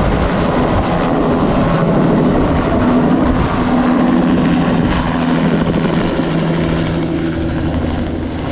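Bell 206 JetRanger turbine helicopter running at full power close by as it lifts off and flies away, its rotor and turbine noise steady and loud, then getting somewhat quieter near the end as it pulls away.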